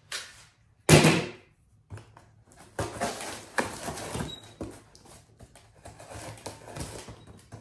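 Tanto knife slicing through packing tape and scraping along the top of a cardboard box, a run of irregular scratchy cuts and rips. One sharp knock about a second in is the loudest sound.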